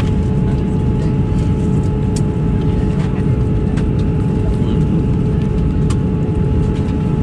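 Steady drone of an airliner cabin in flight, engine and airflow noise with a constant hum, and a few faint clicks.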